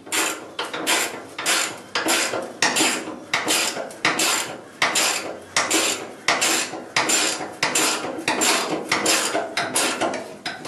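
Self-drilling hex-head screw being driven by hand with a long-shafted driver through a wooden block into the steel fuel-tank support shelf: short, even turning strokes, about two a second, each with a faint high squeak.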